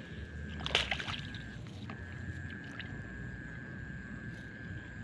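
A wet cast net and its lead chain being handled and gathered up on wet grass, with small clicks and a brief louder rustle and splash about a second in. Underneath runs a steady thin high tone that drops out briefly about two seconds in.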